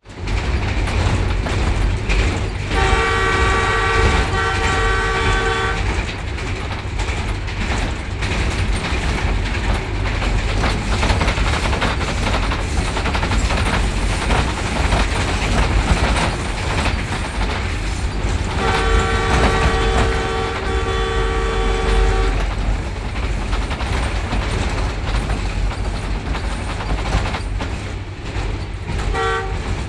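Pakistan Railways ZCU-20 diesel-electric locomotive passing with its train: a steady loud rumble of engine and wheels on the track. Its multi-note horn sounds two long blasts, about three seconds and nineteen seconds in, and a short toot near the end.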